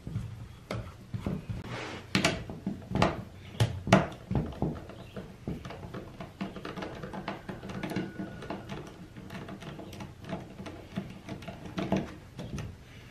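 Phillips screwdriver turning out screws from a chainsaw's handle and plastic housing, with irregular small clicks, scrapes and knocks as the tool and parts are handled; a few louder knocks come between about two and four seconds in.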